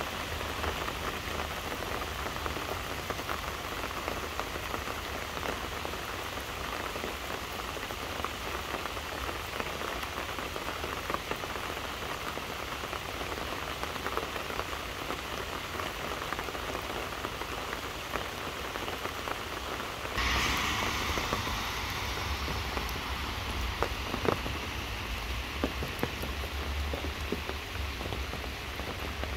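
Steady rain falling on trees and grass: an even hiss with scattered small drops. About two-thirds of the way through, the sound changes abruptly to a louder, brighter hiss of rain, with a few sharper drips after it.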